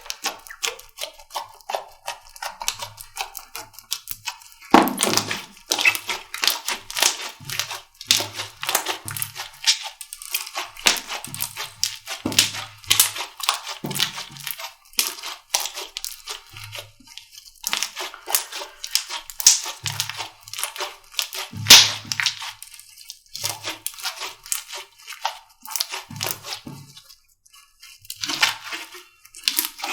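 Slime being squeezed and pressed by hand, giving dense, irregular crackling and popping clicks with soft low squelches in between.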